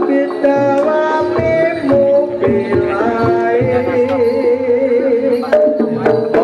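Javanese jaranan accompaniment music: hand drums struck in a quick pattern under tuned pitched instruments, with a wavering melody line riding on top.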